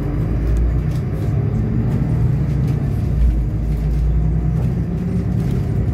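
Solaris Urbino 12 city bus driving at a steady speed, heard from inside: a continuous low engine and road rumble.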